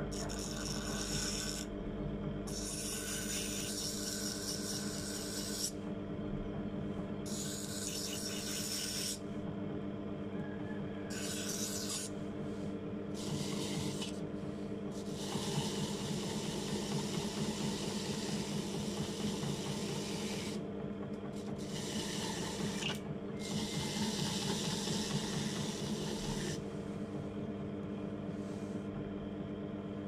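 Homemade bench grinder driven by a washing machine motor, running with a steady hum, as a small metal blade is pressed in repeated passes of a few seconds each against its grinding wheel and wire brush wheel, giving a hissing, rasping grind each time it touches.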